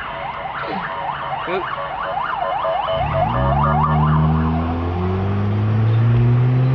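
Emergency vehicle siren in a rapid yelp, its pitch sweeping up and down several times a second. About three seconds in, a vehicle engine joins it, accelerating with its pitch climbing slowly.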